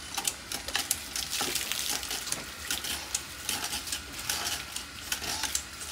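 Water from a garden hose spattering and trickling over a cow's leg and the wet concrete floor as an abscess is flushed out, a steady hiss broken by many small irregular splashes and crackles.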